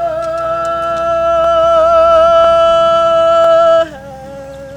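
A Hawaiian chanter holding one long sustained note in a traditional hula chant (oli), with a slight waver in the middle. About four seconds in it breaks off and drops to a softer, lower held tone. A light beat falls about once a second underneath.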